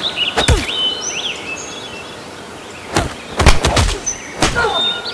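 Sharp hits and swishes of a staged fist-and-kick fight: one near the start, a cluster about three to four seconds in, and another near the end. Birds chirp throughout.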